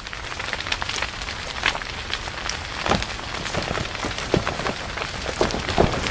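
Rain sound effect: a steady patter of rain with many scattered sharper drop ticks, growing gradually louder.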